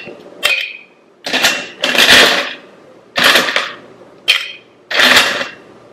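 Ice cubes scooped with a metal scoop and dropped into a stainless steel cocktail shaker, clattering against the metal. It comes as a series of separate loud clatters, about one a second.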